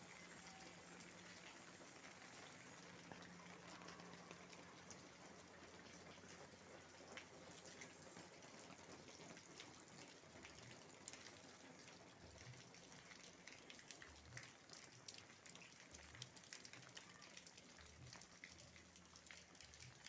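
Faint rain falling, a steady patter of many small drops hitting surfaces. Soft low thuds come now and then from about ten seconds in.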